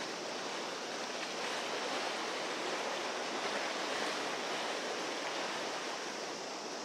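Steady rushing of sea waves at the shore, mixed with wind.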